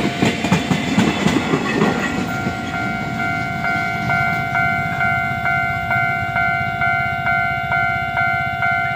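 The last cars of a freight train clatter over rail joints for about two seconds and then fade away. A level-crossing warning bell takes over, ringing steadily at about three strokes a second while the crossing lights stay red.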